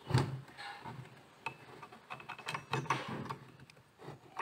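Irregular metal clicks and knocks as a hex key is fitted into the blade arbor bolt of a Total cordless circular saw and worked, the saw being handled.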